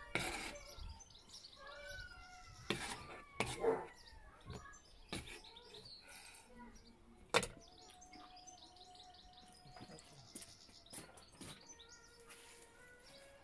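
Kitchen knife knocking against a plastic cutting board as a banana is sliced, a handful of separate sharp clicks, the loudest about seven seconds in. Small birds chirp and whistle throughout.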